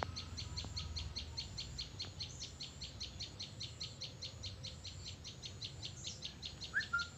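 A rapid, even series of short high-pitched chirps, about six or seven a second, keeps going throughout, from a small wild creature; a single short call sounds near the end. The roosters in view are not crowing.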